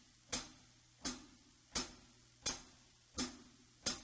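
Metronome click track ticking steadily at 85 beats per minute, a little under one and a half clicks a second, faintly leaking from headphones. It is the count-in before the drums come in.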